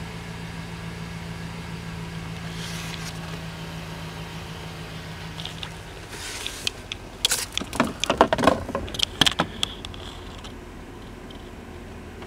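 A 2007 Chevrolet Silverado's 5.3-litre Vortec V8 idling steadily, heard from inside the cab. From about six seconds in, the hum falls back under a quick run of clicks and knocks from handling around the dashboard.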